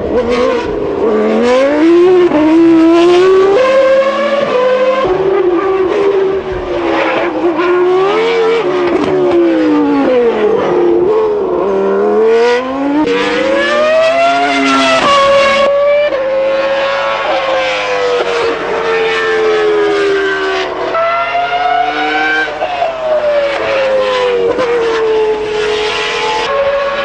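1997 Williams FW19 Formula 1 car's 3.0-litre Renault V10 at racing speed. Its high-pitched engine note climbs, then drops sharply at each gear change, and falls and rises again through the corners.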